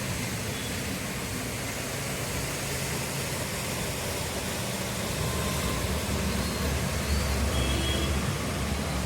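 Heavy rain falling with a steady hiss. A low rumble builds up in the second half.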